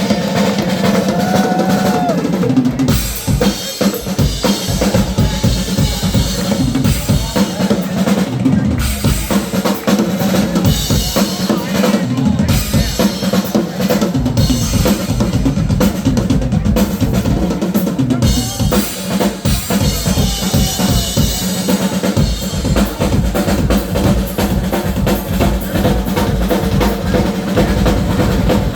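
Live polka band playing, with a drum kit loud and busy at the front of the sound.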